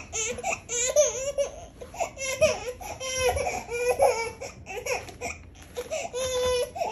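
A baby's high-pitched voice in a string of short cries and squeals, one after another with brief gaps.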